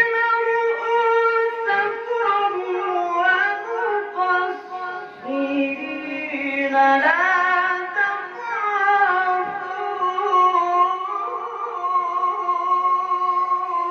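A man reciting the Quran in the melodic tilawah style into a microphone, holding long ornamented notes. His pitch steps up about seven seconds in.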